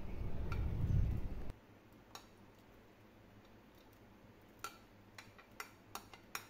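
A wooden spoon clicking against a glass plate, a handful of separate sharp clicks, as fried dry fruits are scraped off it into a pot. A low rumble in the first second and a half cuts off abruptly.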